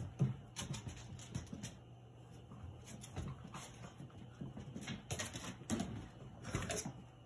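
Cavalier King Charles Spaniels scrambling and jumping up at plastic storage bins: an irregular run of claw clicks and scratches, with a few short whimpers.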